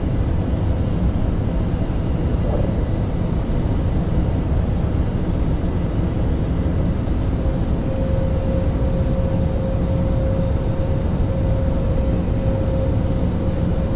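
Steady cockpit noise of an Airbus A320neo on approach: a constant rush of airflow with engine and air-conditioning hum. A steady thin tone comes in about halfway through and holds.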